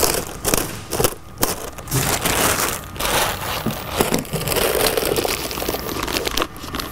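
Thin clear plastic bag liner crinkling on and off as it is pushed down and folded over a metal ring by hand.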